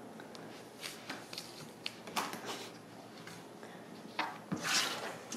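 Quiet handling sounds of paper shell pieces being sewn together with needle and thread: faint scattered clicks and scrapes, then a louder rustle and scrape a little after four seconds in as the thread is drawn through and a piece is moved.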